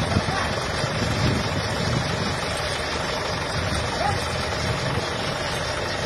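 Heavy diesel engine of a CAT wheel loader running steadily as the loader raises its bucket against another machine. Faint voices call out over it.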